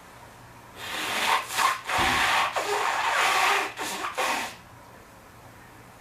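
A person blowing their nose: several forceful, rasping blows with short breaks between them, lasting about four seconds.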